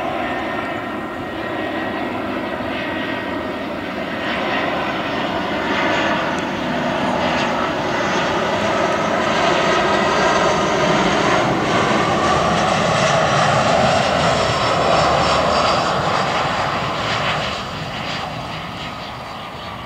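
Airbus A320 jet airliner on final approach, gear down, its engines running steadily. The sound swells to a peak as it passes close, then fades near the end with a whine falling in pitch as it goes by.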